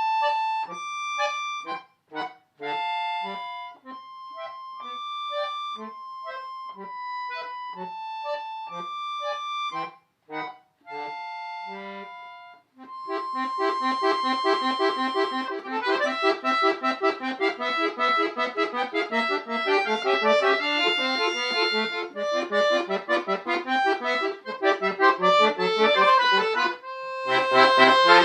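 Solo accordion playing a piece. For the first half it is a single melody line with short breaks. About halfway through it turns louder and fuller, with chords over a pulsing bass, and near the end a loud held low chord comes in.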